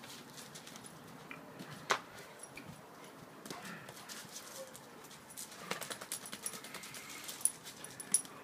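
A dog's paws pattering and scrabbling on a wooden deck as it runs wildly about. Irregular sharp clicks and knocks, with a louder knock about two seconds in and another near the end.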